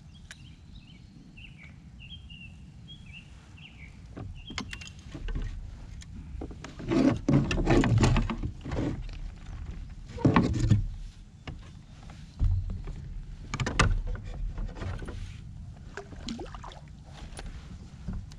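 Knocks, clatter and rustling against a plastic fishing kayak's hull and deck as a small bass is unhooked and handled aboard, irregular and loudest in a few clusters in the middle. Short chirping calls from a bird come in the first few seconds, over a low wind rumble.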